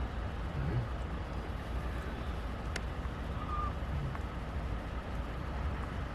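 Steady low rumble of a car, with a faint even hiss and one light click about three seconds in.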